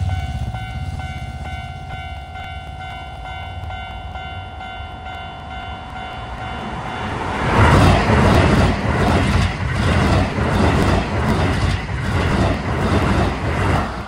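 Level-crossing warning alarm ringing steadily. About seven seconds in, a Keisei 3800-series limited express electric train passes at speed, a loud rumble with rhythmic wheel clatter over the rail joints, about two beats a second, while the crossing alarm keeps ringing beneath it.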